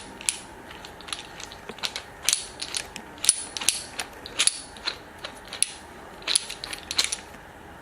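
Ventilator hanger arm being rotated onto its mounting base, giving irregular ratchet-like clicks in small clusters.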